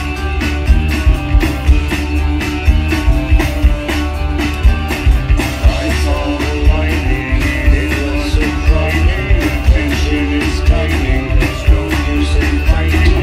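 Live band playing loudly: a drum kit keeping a steady beat under bass guitar and electric guitar, with a man singing the lead vocal.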